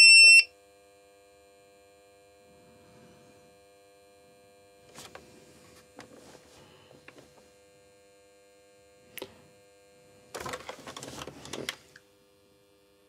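APC Back-UPS RS-550 uninterruptible power supply switching on, running on its newly fitted battery: a loud high beep cuts off just after the start, then a faint steady electrical hum of several tones. A few light knocks, then rustling and knocking near the end as the unit is handled and turned over.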